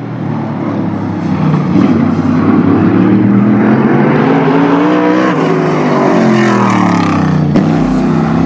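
Engine of a NASCAR modified race car running laps on a short oval track. Its pitch climbs and falls several times as it accelerates and lifts through the turns.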